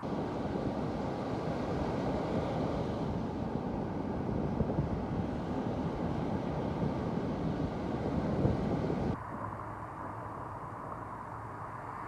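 Surf breaking and washing up a sandy beach in strong wind: a steady, loud rushing with deep rumble. About nine seconds in it drops suddenly to a quieter wash.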